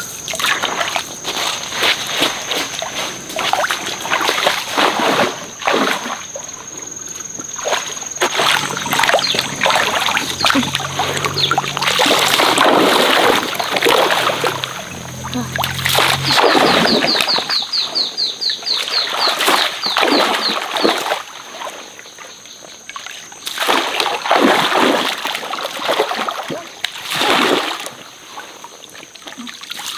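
Stream water splashing and sloshing in irregular bursts, as someone wades and works in the water.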